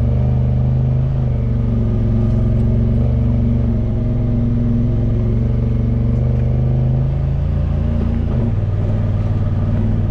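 Side-by-side UTV engine running steadily under load at trail-crawling speed on an uphill grade, a steady low drone whose pitch drops about eight and a half seconds in.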